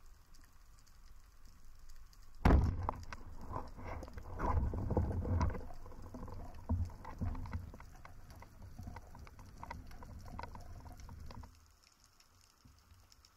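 Band-powered speargun firing underwater, a single sharp crack about two and a half seconds in. It is followed by several seconds of rumbling water noise with clattering knocks from the spear shaft and gear as the diver handles the shaft and swims up, which stops suddenly near the end.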